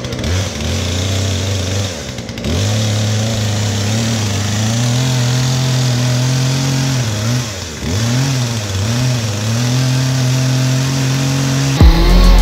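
Chainsaw cutting through a 6x6 wooden post, its motor note sagging in pitch several times as the chain bites into the wood and recovering between bites. A sudden, much louder low sound comes in near the end.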